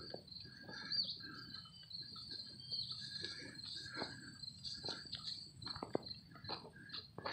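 Crickets chirring steadily in a high, even trill, with scattered soft knocks from footsteps on grass.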